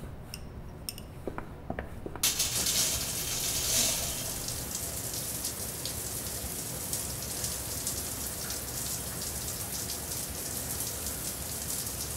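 Water running hard, a steady hiss that is switched on suddenly about two seconds in, after a few light knocks.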